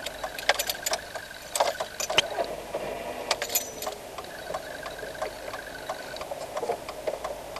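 Irregular sharp clicks and light knocks inside a car's cabin, bunched in the first two seconds and again about three and a half seconds in, over a faint steady running of the car.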